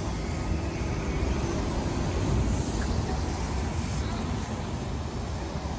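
VDL Citea city bus driving past at low speed, a steady low rumble of drive and tyres that swells slightly about halfway through as it passes and turns away.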